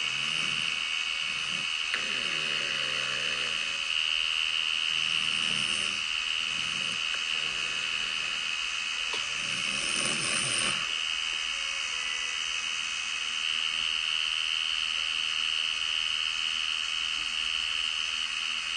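A client snoring: several low, rough breaths a couple of seconds apart during the first half, a sign she has fallen asleep during lip tattooing. Under it runs the steady high-pitched whine of a permanent-makeup tattoo machine.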